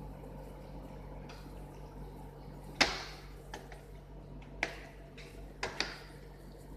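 A few sharp clicks and light knocks of laptop parts being handled and fitted together, the loudest about three seconds in, over a steady low hum.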